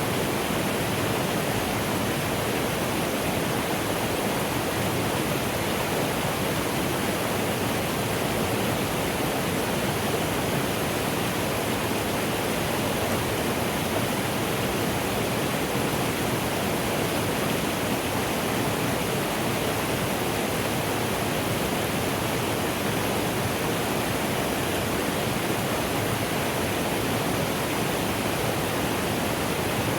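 Mountain stream rushing steadily, a dense even hiss of flowing water.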